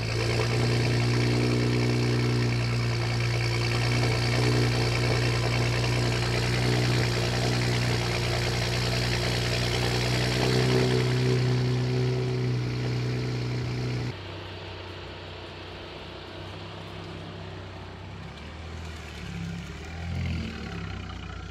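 Audi S4 engine running at a steady high idle just after start-up. About two-thirds of the way through it drops suddenly to a quieter, lower idle.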